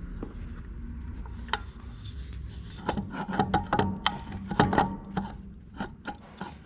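Metal clinks, knocks and scraping as an alternator is worked into its mounting bracket and its bottom bolt pushed through, with a cluster of sharper knocks a few seconds in.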